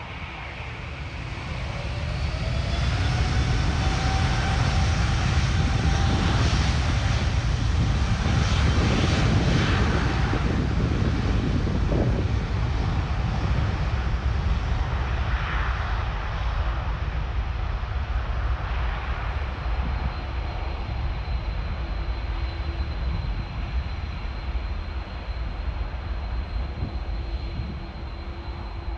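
Airbus A330-900 airliner's Rolls-Royce Trent 7000 turbofans spooling up to takeoff thrust: a rising whine over a deep rumble, growing loud over the first few seconds. The loud engine rumble of the takeoff roll then holds and slowly fades as the jet accelerates away down the runway.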